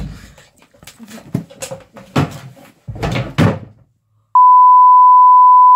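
A run of knocks and thuds in a small room, about six over three and a half seconds, then a loud steady electronic beep that lasts well over a second and cuts off suddenly.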